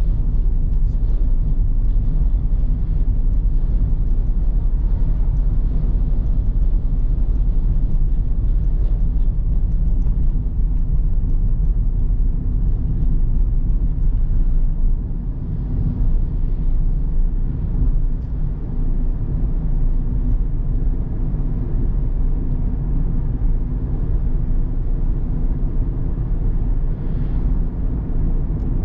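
A car driving on the road: a steady low rumble of engine and tyre noise, dipping briefly in level about halfway through.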